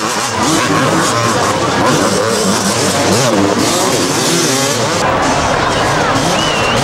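Several supercross motorcycle engines revving up and down together, their pitches rising and falling over one another, over a steady crowd noise.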